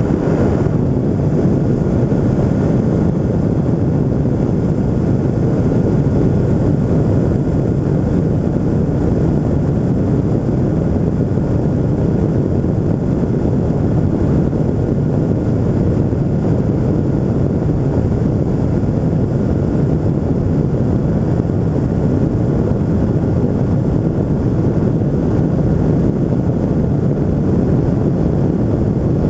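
The Pegasus Quantum microlight trike's Rotax 582 two-stroke twin and pusher propeller run steadily at climb power, a loud, even drone mixed with the rush of the open-cockpit airflow.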